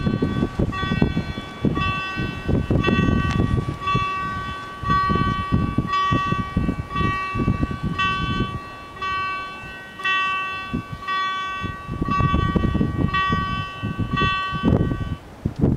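Level crossing warning bells ringing in steady strokes, about two a second, while the barriers come down, and stopping a little before the end. Wind gusts buffet the microphone underneath.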